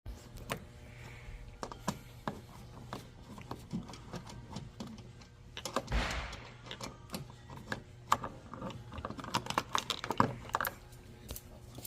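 Scattered light clicks and taps of hands working on plastic tail-light trim with small tools, with a short scraping rustle about six seconds in.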